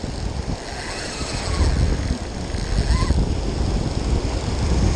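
Wind rumbling on the microphone over breaking surf. The rumble grows stronger about a second and a half in.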